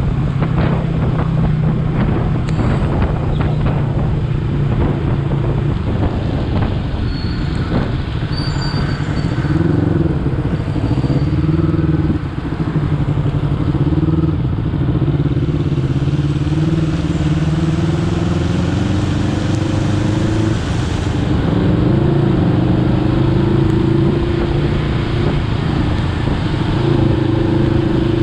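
Honda CBR250RR's parallel-twin engine running as the bike is ridden, its pitch dipping and climbing again several times with throttle and gear changes, under a haze of wind and road noise.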